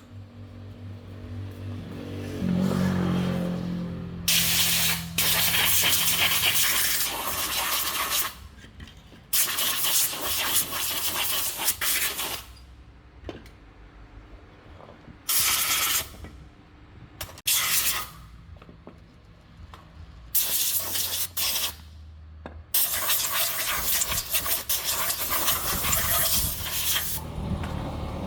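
A motor hum that winds down and stops in the first few seconds, then six bursts of loud hissing spray, each from half a second to about four seconds long, with a low hum between them.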